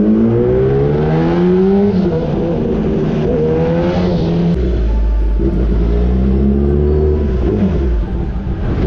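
Motorcycle engine accelerating hard: the pitch climbs and drops at a gear change twice, then settles into a steadier drone.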